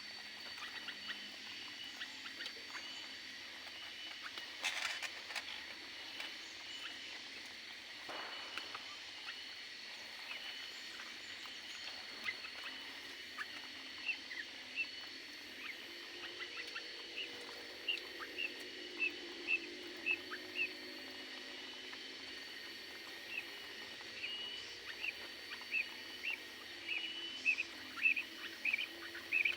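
Small aviary birds chirping: short high chirps, scattered at first and coming several a second over the second half, over a faint steady high whine.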